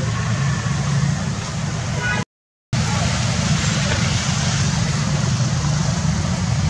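Steady street background noise with a low rumble of traffic. The sound drops out completely for about half a second a little over two seconds in, then resumes.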